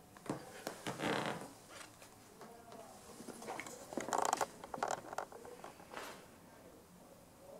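Intermittent creaks and scratchy scraping noises with a few clicks, loudest about four seconds in.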